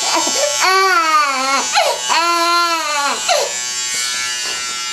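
Infant crying in two long wails that rise and fall in pitch, over the steady buzz of electric hair clippers. The crying stops about three and a half seconds in, leaving the clippers' buzz.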